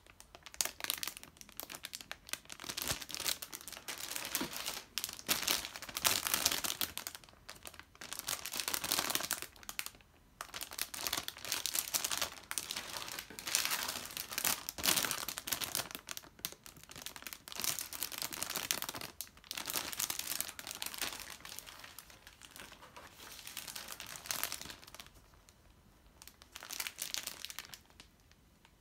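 Thin plastic bags and cellophane wrap around plastic model-kit runners crinkling and rustling as they are handled, in uneven bursts with short pauses between.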